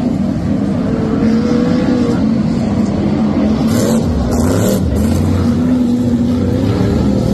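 BriSCA F1 stock cars' V8 engines racing past, several at once, their pitch rising and falling as the drivers get on and off the throttle.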